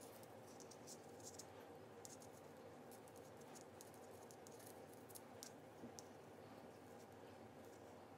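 Faint, irregular clicks and scratches of circular knitting needles as stitches are worked, over a steady low hum.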